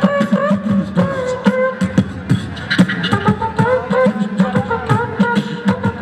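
Group beatboxing through a PA system: several voices layering mouth-drum beats of sharp kick and snare hits under held vocal melody lines, the melody shifting to new notes about halfway through.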